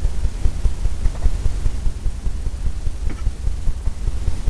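Steady, fluttering low rumble of background noise, with two faint short strokes about one and three seconds in.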